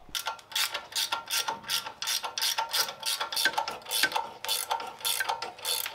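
Ratchet wrench clicking steadily, about four clicks a second, as the nut on a shock absorber mounting is undone.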